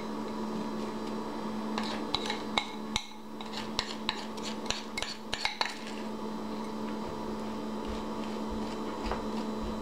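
A spoon scraping and clicking against a bowl while scooping sticky marshmallow-coated rice cereal into a glass dish. The clicks come in a cluster between about two and six seconds in, with one more near the end, over a steady low hum.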